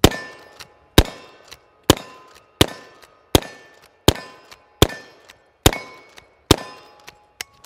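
Henry lever-action rifle in .45 Long Colt fired rapidly from the hip: nine shots, one a little under every second, each cycled by the lever, with a brief ringing after several of them. A few lighter clicks of the lever action come near the end.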